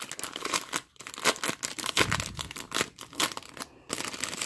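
Card-kit packaging being torn open and crinkled by hand: a run of irregular crackles and rips with a couple of brief pauses.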